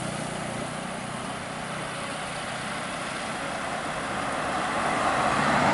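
Road traffic on a highway: the engine of one passing vehicle fades away, leaving a steady rush of tyre and road noise that grows louder toward the end as another vehicle approaches.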